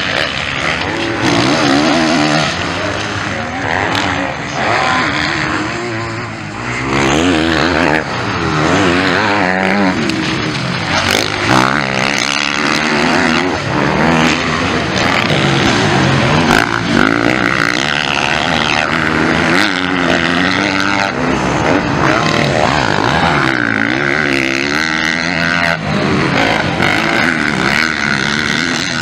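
MX1-class motocross bike engines revving hard as the riders race, the pitch rising and falling over and over with throttle and gear changes.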